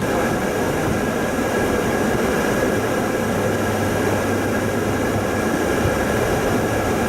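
Steady rushing noise inside a car's cabin while it drives through a storm: tyre and wind noise with rain on the car, and no separate hits.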